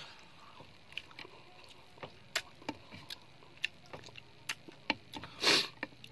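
Eating sounds of a person eating fried chicken with the fingers: scattered short clicks of chewing and of fingers picking at the plate, with one louder rushing noise lasting under half a second about five and a half seconds in.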